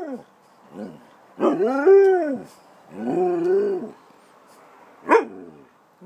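Siberian husky "talking": a few drawn-out, howl-like calls that rise and then fall in pitch, then a short sharp bark about five seconds in. The dog is asking for its dinner.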